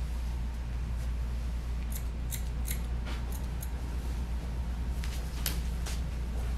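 Grooming scissors snipping hair around a dog's ears in short crisp cuts: a quick run of about six snips about two seconds in, then a few more around five seconds, over a steady low hum.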